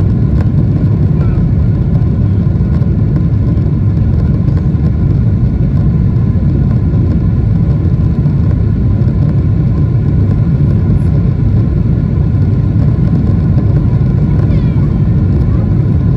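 Steady cabin rumble inside a Boeing 777-300ER in flight: the constant low roar of its GE90-115B engines and the airflow past the fuselage, holding an even level throughout.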